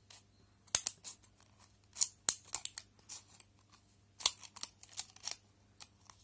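Scissors snipping through an empty medicine blister strip of foil and plastic: a string of short, sharp cuts at uneven intervals, the loudest about four seconds in.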